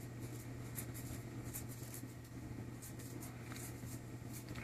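Quiet room tone: a steady low hum with a few faint, scattered soft clicks and rustles.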